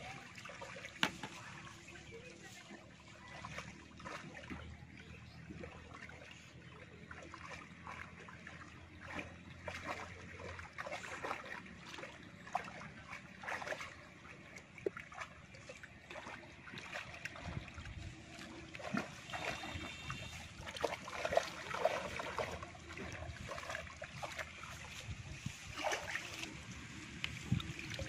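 Shallow water sloshing and splashing irregularly as a bamboo-framed push net is worked through a flooded paddy by people wading.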